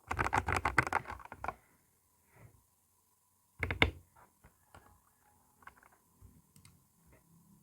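Typing on a Tecware B68 mechanical keyboard with Gateron Yellow linear switches: a fast run of keystrokes for about a second and a half, then a pause. A short loud cluster of keystrokes follows about four seconds in, then a few scattered soft key presses.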